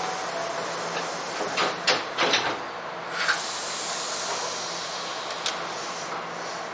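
Nose Electric Railway train standing at a platform before departure: its doors close with a few sharp clunks about two seconds in, followed by a short hiss of compressed air, over a steady low hum from the stopped car.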